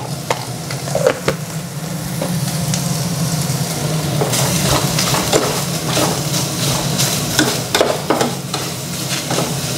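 Sliced beef sizzling as it is dry-fried with a little salt in an aluminium pot, stirred with a metal spoon that scrapes and clicks against the pot. The sizzle grows louder about four seconds in, once the stirring starts.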